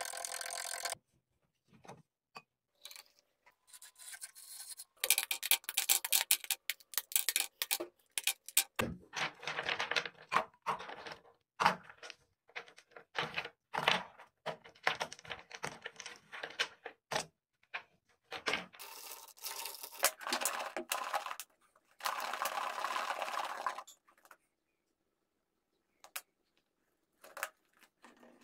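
A run of clinks, taps and scrapes of glassware and utensils as an iced coffee is put together, broken by brief silences. A few longer steady noisy stretches stand among them, the last about two seconds long near the end.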